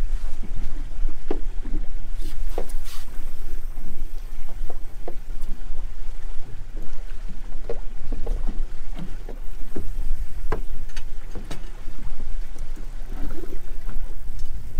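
Steady low rumble aboard a small fishing boat, with scattered light knocks and clicks through it.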